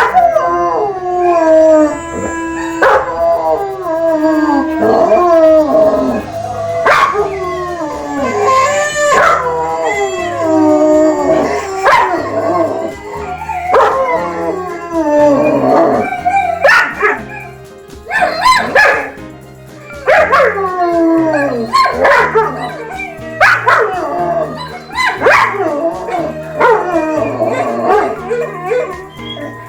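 Several dogs howling in overlapping, drawn-out howls that slide down in pitch, a new howl starting every second or two, with some yips. Background music with a steady bass line plays underneath.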